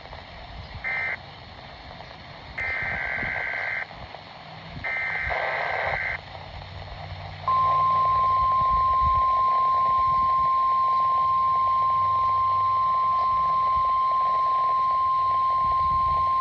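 Emergency Alert System test signal heard over a radio: a short screech of digital data tones, then two longer data bursts, the SAME header of a required monthly test. About seven and a half seconds in, a single steady alert tone starts and holds at one pitch.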